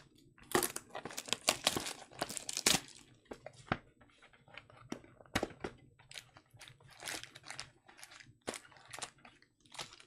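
Crinkling, crackling and tearing of wrapping as a Topps Finest baseball hobby box is opened and its card packs are handled and pulled out: a dense run of crackles in the first few seconds, then scattered rustles and taps.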